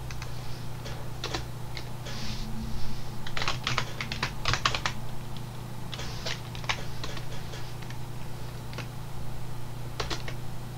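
Typing on a computer keyboard: short runs of keystrokes with pauses between them, over a steady low hum.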